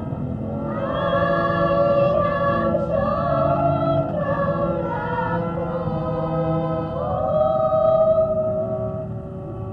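A Vietnamese Christmas hymn sung over instrumental accompaniment, the voice coming in about a second in and holding long notes.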